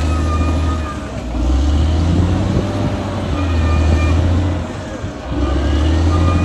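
Caterpillar D6R XL bulldozer's diesel engine running under load, easing off briefly twice, about a second in and about five seconds in. A thin high whine rises and falls above it.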